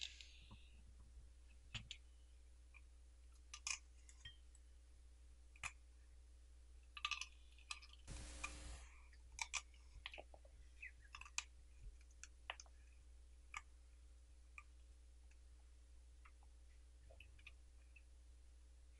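A Welsh corgi eating raw cabbage leaves off a plate: scattered crisp crunches and clicks of chewing, with a longer rustle about eight seconds in.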